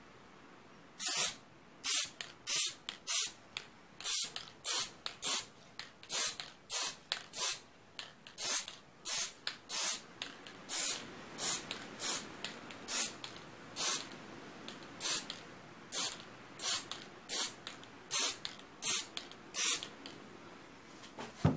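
Spray paint hissing from an aerosol can in about thirty short bursts, one to two a second, as red stripes are sprayed onto a painted fake snake.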